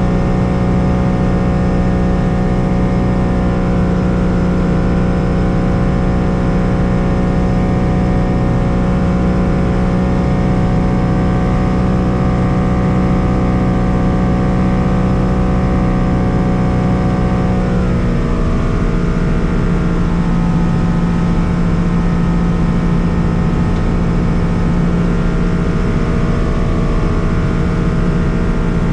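Lake Buccaneer LA-4-200 amphibian's four-cylinder Lycoming IO-360 engine and pusher propeller running at steady power; about two-thirds of the way through the pitch drops a little and the sound turns rougher as the power is eased back.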